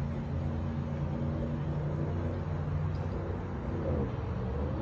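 A steady low drone of a running motor or engine, even in pitch throughout.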